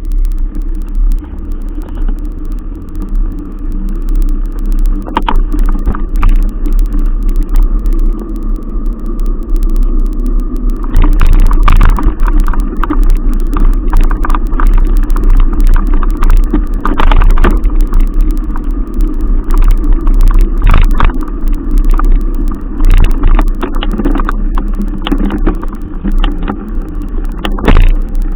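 A moving vehicle: a steady drone under a deep, loud rumble, with scattered knocks and rattles that come thicker from about a third of the way in.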